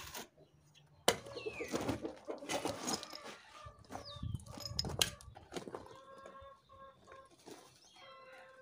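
A sharp knock and about two seconds of scraping and rubbing as a PVC drain tube is worked out of cast concrete, followed by birds calling, with a few held calls in the second half.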